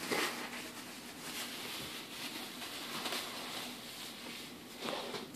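Faint rustling and crinkling of plastic grocery bags and packaging being handled, with a few small knocks.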